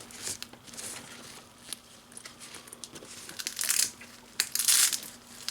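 Packaging being handled and unwrapped: scattered light clicks and taps, then two louder crinkling rustles, about three and a half seconds in and again a second later.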